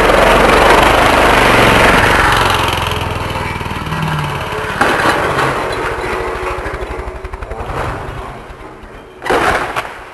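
Small engine running loud, with its firing pulses plain, fading steadily away over several seconds. A short burst of noise comes near the end.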